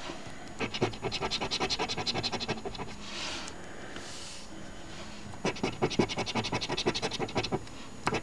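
A coin scraping the scratch-off coating on a paper instant lottery ticket, in two runs of rapid back-and-forth strokes of about ten a second. In the pause between the runs come two soft swishes.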